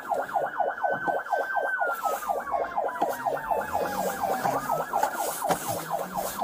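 Police cruiser siren in a fast yelp, about six rapid falling sweeps a second. A second, slower wailing siren tone glides up and down beneath it during a pursuit.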